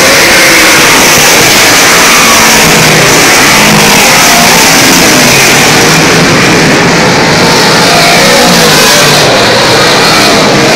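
A field of dirt-track modified race cars racing around the oval, loud throughout, their V8 engines revving up and falling away as they pass.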